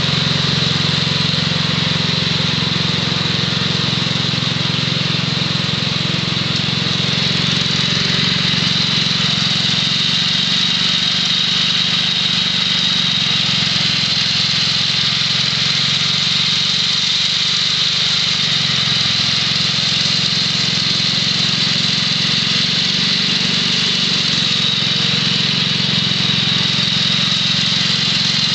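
A 1967 Wheel Horse Lawn Ranger's 6 HP Tecumseh H-60 single-cylinder engine running steadily, driving a 32-inch snowthrower as it throws snow.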